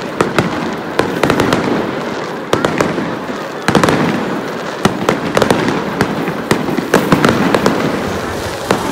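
Aerial fireworks bursting overhead in quick succession: a string of sharp bangs over continuous crackling.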